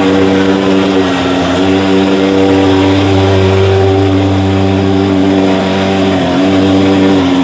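Portable thermal fogging machine's pulse-jet engine running with a loud, steady buzzing drone, wavering slightly in pitch twice.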